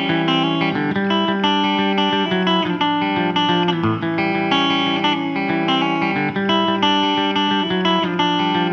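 Electric guitar picking a steady run of notes through effects, the instrumental intro of a rock song, with no singing yet.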